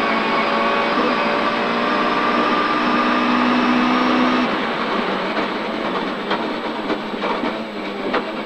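Mk2 Ford Escort rally car's 2.5-litre Millington Diamond engine, heard from inside the cabin, held at steady high revs flat out. About four and a half seconds in the engine note drops away as the driver lifts off, leaving rougher road and drivetrain noise with several sharp clicks as the car slows.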